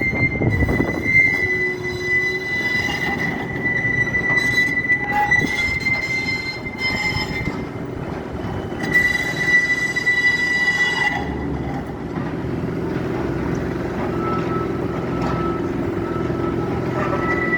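Tram wheels squealing in a long, steady, high-pitched shriek that breaks off and starts again several times, over a constant low rumble of street and machinery.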